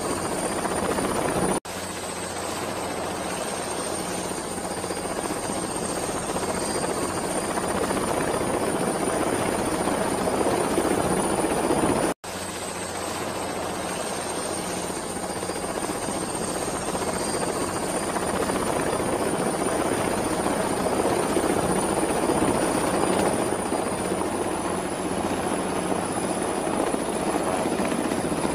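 Helicopter flying: steady rotor and engine noise with a thin high whine above it. The sound cuts out for an instant twice.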